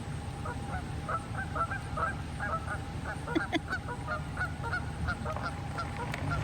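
Geese honking in a rapid run of short calls, several a second, starting about half a second in.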